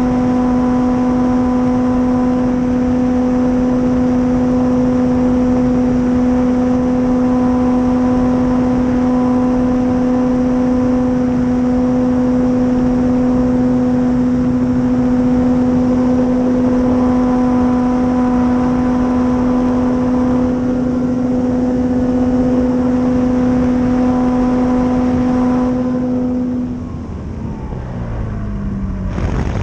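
Dualsky 480 brushless electric motor and propeller of an RC warplane, heard from its onboard camera: a steady whine at constant throttle over wind rush. About 26 seconds in, the throttle comes off, the whine drops away, and the pitch slides up and down as the motor is throttled.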